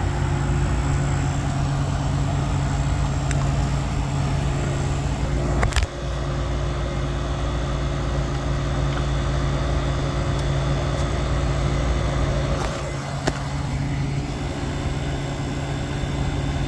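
Refrigeration system running after a solenoid valve swap and a refrigerant top-up: a steady mechanical hum of compressor and condenser fan. A sharp knock comes about six seconds in and a lighter click about thirteen seconds in.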